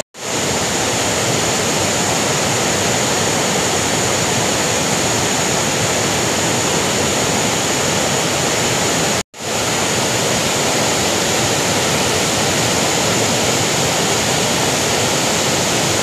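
A waterfall running low, in several thin streams pouring over a rock ledge into a pool: a steady rushing hiss, cut off for an instant about nine seconds in.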